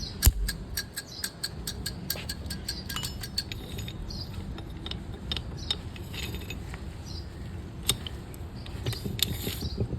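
Metal gearbox parts and tools clinking and tapping against each other in quick, irregular strikes. The strikes come thickly at first and thin out later, with a few louder knocks.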